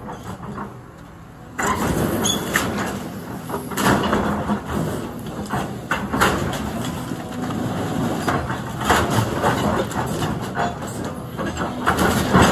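Excavator engine running under load while the machine tears into the building, with wood and metal debris cracking and crashing in many irregular impacts. The din starts about a second and a half in, after a quieter moment.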